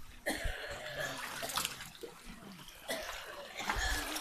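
Water splashing and trickling, with a few soft knocks.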